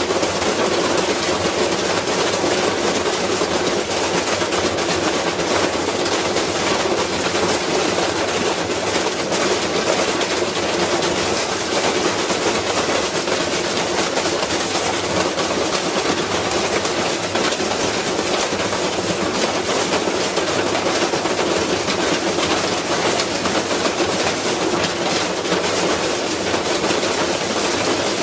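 Washing machine spinning with a brick loose in its drum: a loud, continuous, rapid clattering and banging as the off-balance load pounds the machine, which is wrecking itself.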